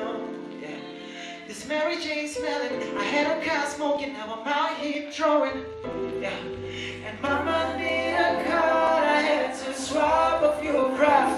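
Live vocal performance: a male singer sings into a handheld microphone over music with held chords. A deep bass line comes in about halfway through.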